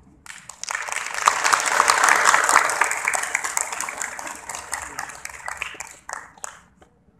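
Audience applauding: dense clapping that starts suddenly, swells to its loudest about two seconds in, then thins and dies away with a few last claps near the end.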